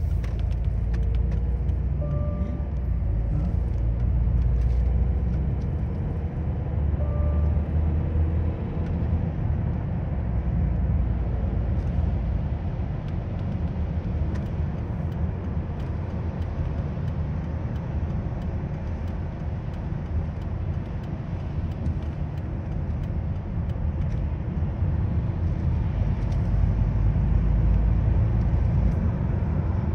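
Steady low rumble of a car's road and engine noise heard from inside the cabin while driving on a wet highway at about 70 km/h, with some tyre hiss over it.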